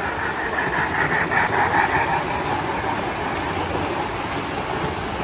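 Tinplate toy electric trains running on three-rail track, a steady rumble and clatter of wheels on the metal rails.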